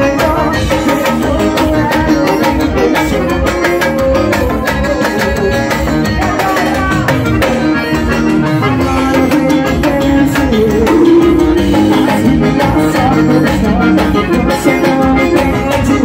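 Live forró band playing loudly with a steady, driving beat: electric guitar, bass guitar, keyboard and drums.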